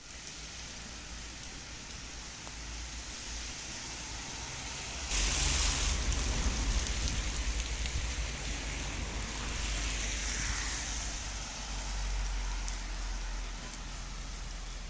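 Heavy rain falling, a steady hiss that grows suddenly louder about five seconds in, with a low rumble underneath.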